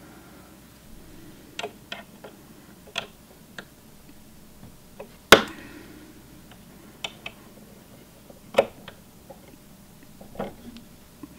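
Scattered metallic clicks and taps of a small screwdriver working at the screws of a Singer Heavy Duty sewing machine's metal needle plate. The loudest is a sharp, ringing clack about five seconds in, with another about three seconds later.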